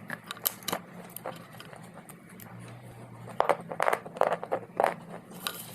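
Dry clay being crunched and chewed close to the microphone: scattered sharp cracks, then a burst of louder crunches about three and a half to five seconds in.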